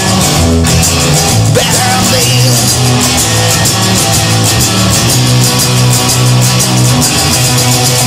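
Rock music: electric guitar over bass and drums, no words sung.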